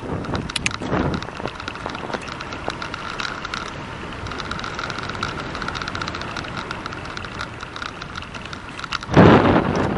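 Bicycle rolling along a paved road, with a steady run of small ticks and rattles. Wind buffets the microphone in short gusts at the start and hard about nine seconds in.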